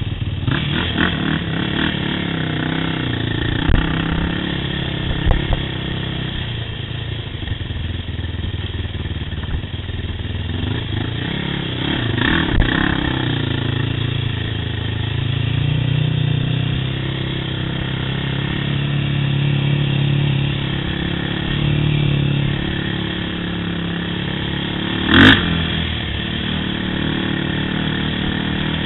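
Yamaha YFZ quad's engine running under throttle while riding, its pitch rising and falling as the throttle changes. There are a few knocks from bumps along the way and one sharp, loud knock about 25 seconds in.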